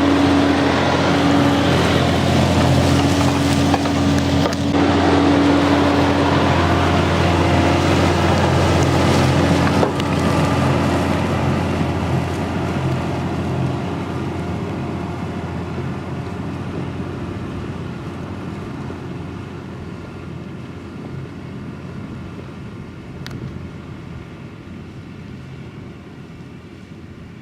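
John Deere 6170R tractor's six-cylinder diesel engine running steadily while pulling a five-furrow plough, with a low hum and a steady whine. It is loudest for the first ten seconds or so, then grows steadily fainter toward the end as the tractor moves off.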